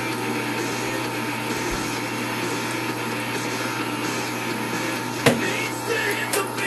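CNC-converted X2 mini milling machine running steadily, its spindle motor giving an even hum with a steady whine. A single sharp click comes about five seconds in, with a few smaller knocks after it.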